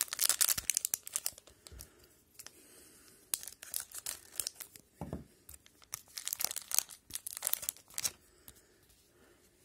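Foil wrapper of an O-Pee-Chee hockey card pack being torn open and crinkled in several crackly bursts, with a single dull knock about halfway through.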